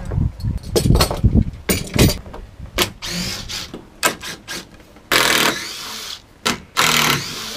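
Cordless drill or driver running at the wooden A-frame's crossbeam in two short runs, about five and seven seconds in, after a few seconds of knocks and clatter against the timber frame.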